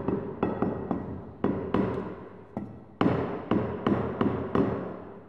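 A run of sharp, irregular knocks, about two or three a second, each ringing out briefly over a faint steady low hum. The loudest knock comes about three seconds in.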